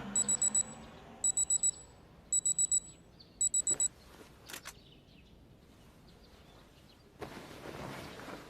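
Digital alarm clock beeping: four rapid bursts of four high-pitched beeps, about a second apart. Two clicks follow, and near the end a steady hissing noise starts.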